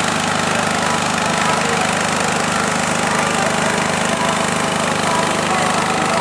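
A small engine running steadily at a constant speed, an even hum that does not change.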